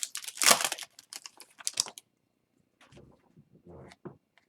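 Hockey card packs and cards being handled: a quick run of small clicks and crinkles from foil wrappers and card stock, which dies down to faint rustles after about two seconds.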